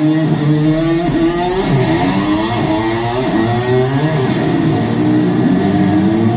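Electric guitar played with a slide, its pitch gliding upward over and over in imitation of a motor scooter revving.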